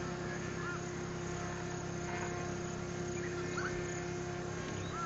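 Steady distant buzzing drone from a small UAV's engine circling overhead, holding one even pitch. A few faint short chirps come through it.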